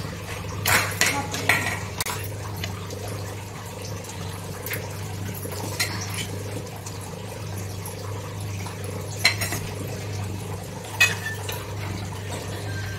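Scattered clinks and knocks of kitchen utensils and packaging being handled, over a steady low hum. There are several clatters in the first couple of seconds, then single sharper knocks later on.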